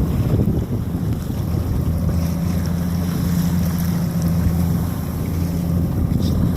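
A boat's engine running steadily with a low hum, with wind rushing over the microphone.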